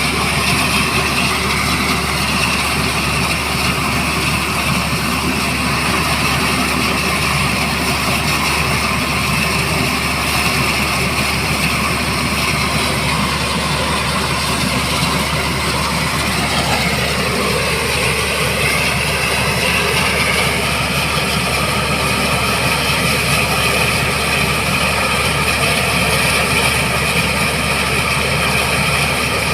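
Black Hawk helicopter running steadily with a continuous engine and rotor noise; a little past halfway its whine shifts down in pitch.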